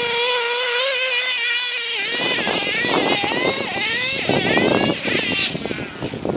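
HPI Savage nitro RC truck's small two-stroke glow engine running at high revs with a high-pitched whine. It holds a steady pitch for about two seconds, then revs up and down as the truck is driven over the dirt, and grows fainter near the end.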